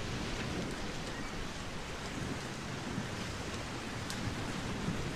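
Ocean surf: a steady rushing wash of breaking waves.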